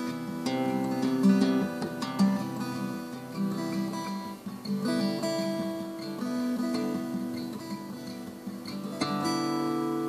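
Slow instrumental music of plucked string notes ringing over one another, with a new chord struck about nine seconds in that rings on.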